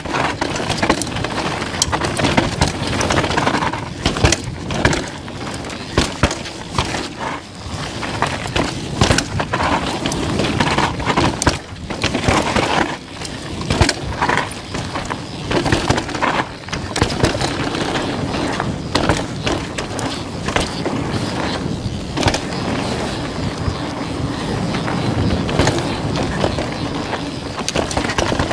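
Downhill mountain bike ridden over a rough trail: steady tyre and trail noise with frequent sharp knocks and rattles from the bike, and wind buffeting the GoPro's microphone.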